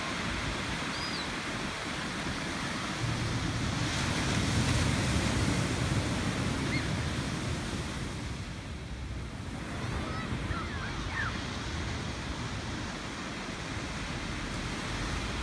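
Ocean surf breaking and washing up a sandy beach: a steady rush that swells louder about three seconds in and eases off around the middle.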